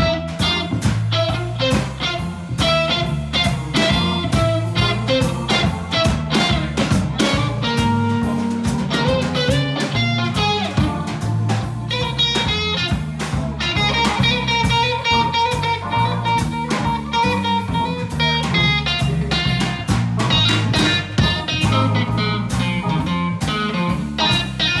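Electric blues played by a band: electric guitar lines over a drum kit keeping a steady beat.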